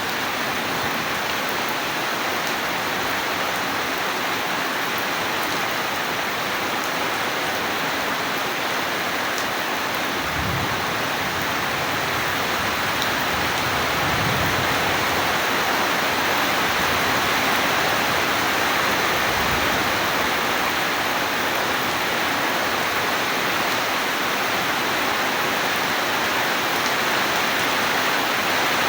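Steady heavy rain, a dense even hiss of falling water, with a few brief low rumbles about ten, fourteen and twenty seconds in.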